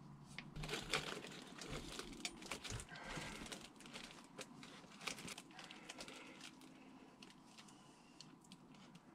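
Faint rustling, crinkling and scattered small clicks of hands working a screwdriver on an exhaust-hose clamp, busiest in the first six seconds.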